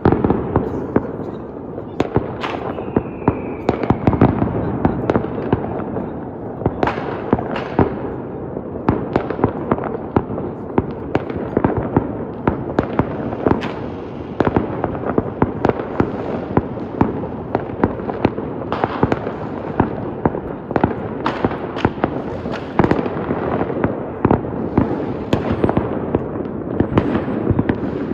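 Fireworks display going off in a dense, continuous barrage of bangs and crackles. A short, slightly falling whistle sounds about two and a half seconds in.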